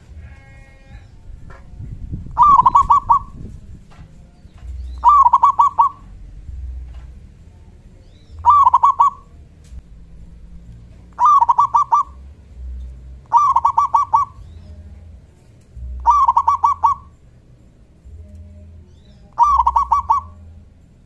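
Zebra dove (local perkutut) singing its cooing song, a short run of quick notes in each phrase, repeated seven times about every two to three seconds.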